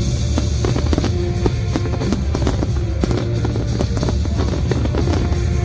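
Fireworks-show soundtrack music with drums and guitar, played loud and steady over the show site's sound system.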